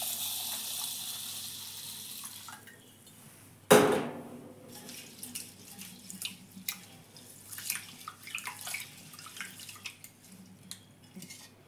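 Tap water runs into a steel bowl of rice for about two and a half seconds. A sharp knock follows, the loudest sound. Then a hand swishes and rubs the rice in the water, with many small splashes and clicks.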